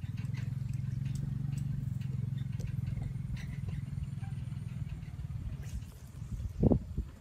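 A low, steady engine drone, fading out about six seconds in, followed by a few dull thumps near the end.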